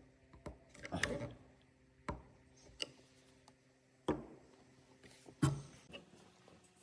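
Wood and tools knocking and clicking, six or so sharp strikes at irregular intervals, the loudest about five and a half seconds in, over a faint steady hum.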